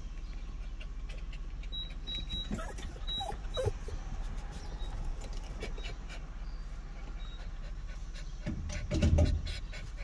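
A dog's small sounds, a few brief ones around three seconds in and a louder one near the end, over a steady low hum.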